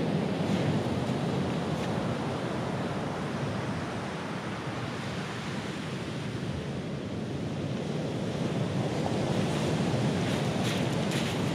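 Rough sea surf breaking and washing up a pebble beach, with wind buffeting the microphone. The wash eases off in the middle and builds again near the end.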